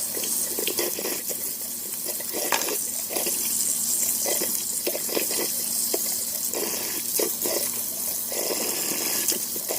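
Kitchen tap running steadily into a sink while a dirty dishwasher part is rinsed and handled under the stream, with irregular rubbing and knocking sounds.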